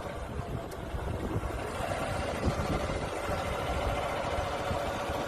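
A motor running steadily, its hum growing a little stronger about two seconds in, with wind buffeting the microphone.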